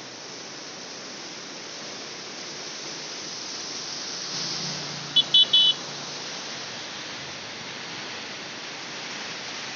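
Swollen floodwater rushing and churning, a steady noisy rush. About five seconds in, three short high-pitched beeps cut through, louder than the water.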